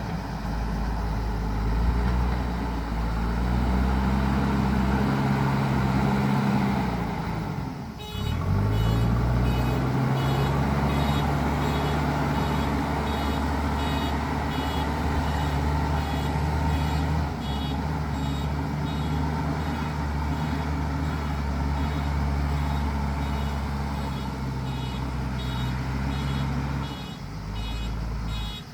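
JCB 3DX Super backhoe loader's diesel engine working under throttle. Its note rises, falls and dips about eight seconds in, then climbs again and holds high. From that moment its reversing alarm beeps in a fast, even rhythm.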